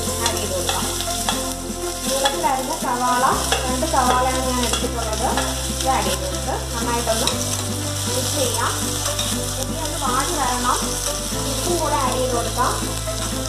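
Sliced onions sizzling as they go into hot sunflower oil in a stainless-steel pressure cooker and are stirred with a spoon. Soft background music runs underneath, with a low bass note that changes about every four seconds.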